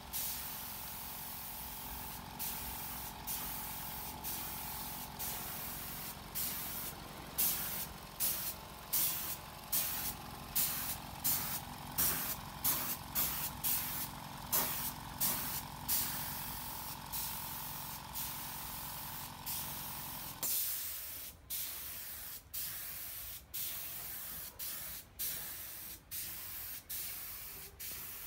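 Portable air compressor running with a steady hum that shuts off suddenly about two-thirds of the way in. Over it, an air gun lets out repeated short blasts of hissing compressed air, about one or two a second.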